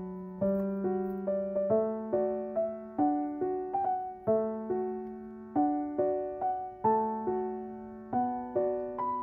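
Background piano music: a gentle tune of struck notes over a sustained low note, played at an even, unhurried pace.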